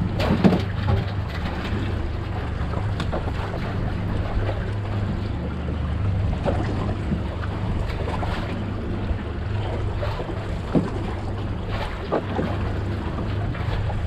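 Small fishing boat at sea with its engine idling in a steady low hum, water slapping against the hull now and then, and wind on the microphone.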